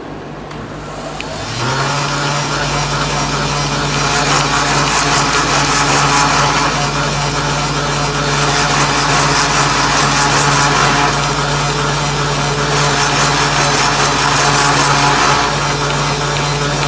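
Louver-boring machine starting up about a second in and running at a steady speed, its motor humming under the noise of the cutter working eucalyptus wood, which swells louder several times.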